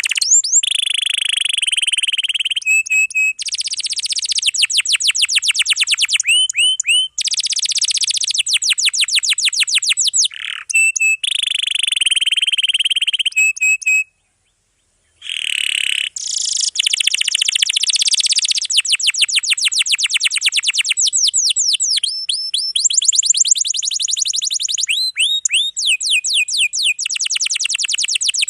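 Domestic canary singing a long, dense song of rapid trills and rolled phrases, high-pitched, with a silent break of about a second roughly halfway through before the song resumes.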